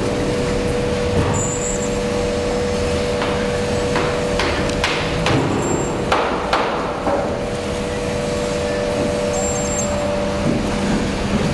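A run of about seven sharp knocks, bunched between about three and seven seconds in, as a stainless steel tank on castor wheels is pushed and turned on a wooden pallet. A steady mechanical hum runs underneath.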